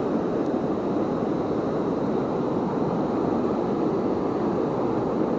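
Steady rush of fast-flowing river water from a waterfall and its current.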